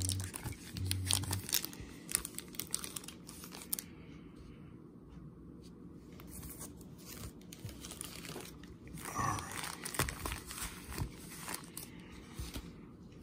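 Foil trading-card pack wrappers crinkling and rustling as the packs are handled and shuffled on a felt table. The crackling is busiest in the first few seconds, eases off, then comes again in a short flurry past the middle.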